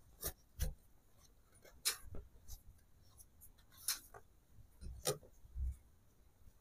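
Shirt fabric being folded and smoothed by hand on a sewing machine table: a handful of short, soft rustles and light taps, scattered through.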